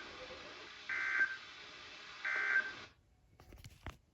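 Emergency Alert System end-of-message data bursts: short two-tone digital chirps, two of them about a second and a half apart, over steady radio hiss. They signal the end of the warning message. The hiss cuts off suddenly a little later, and a few faint clicks follow.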